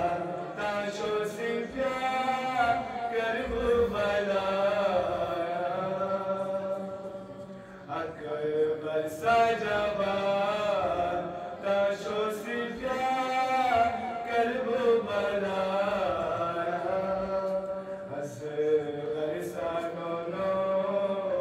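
A man chanting a Balti-language qasida, a devotional poem, into a microphone in long, melodic phrases with held, wavering notes and a brief pause about eight seconds in.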